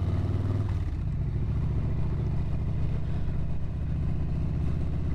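Stage 1 2020 Harley-Davidson Street Bob's Milwaukee-Eight 107 V-twin running steadily under way, a dense, even beat of firing pulses.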